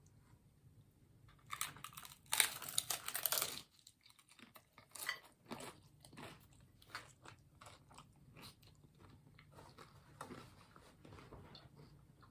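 Biting into and chewing a taco: a loud stretch of crunching about one and a half to three and a half seconds in, then a scattering of quieter crunches and mouth clicks as the chewing goes on.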